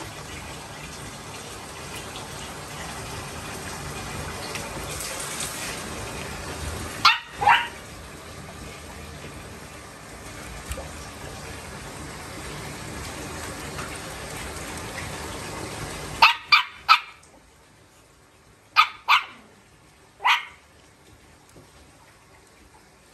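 Shih Tzu puppies barking in short sharp barks: a pair about seven seconds in, then a quick run of three, two more and a last single bark. A steady rush of running water from the tub tap fills the background and stops about two-thirds of the way through.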